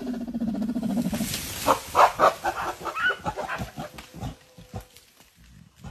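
Mountain gorillas grunting: a low, drawn-out grunt, then a rapid run of short, harsh grunts and cries that tails off.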